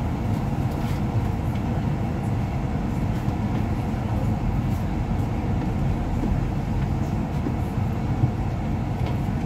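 A double-decker bus's engine idling while the bus stands still, a steady low rumble heard from inside the upper deck.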